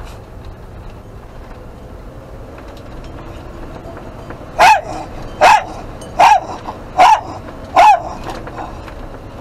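A dog barking loudly five times in quick succession, close to the microphone, over the steady engine and road noise of a camper van.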